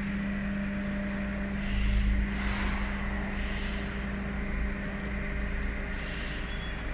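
Steady low mechanical hum over a rumble, with three short hisses.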